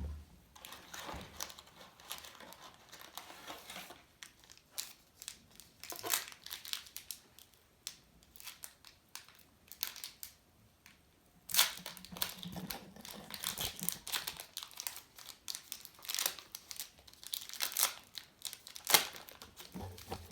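Plastic wrapper of a baseball card pack crinkling and tearing as it is opened, in irregular bursts with sharp crackles, the loudest about halfway through and again near the end.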